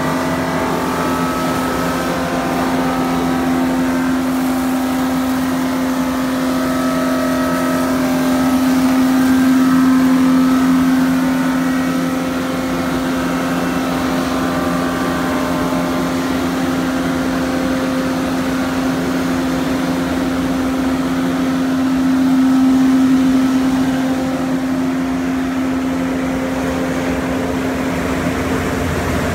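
Mattison rotary knife lathe running, its knife head cutting a square treated-pine verandah post into a turned post: a steady machine hum at one pitch with fainter shifting tones above it. It grows louder twice, around ten seconds in and again around twenty-three seconds.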